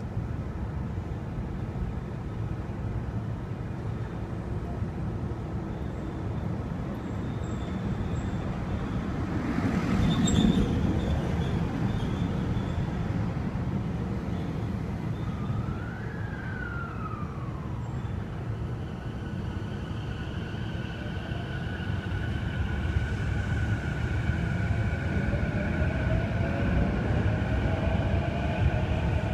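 Steady low rumble of city traffic. A vehicle passes louder about ten seconds in, a brief rising-then-falling tone sounds a little later, and a rising whine builds over the last few seconds.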